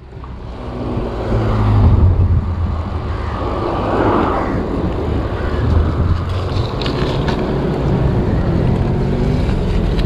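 Wind buffeting a GoPro Hero 7's microphone on a moving bicycle: a loud, steady, gusting rumble.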